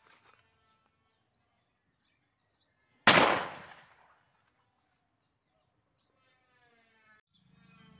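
A homemade wooden sound gun firing once: a single sharp bang about three seconds in that dies away over about a second.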